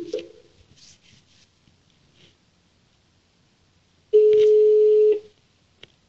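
Telephone line tones as a dropped call is being reconnected. Pulsed tones cut off just after the start, then a single steady ringing tone about a second long comes in about four seconds in, followed by a faint click.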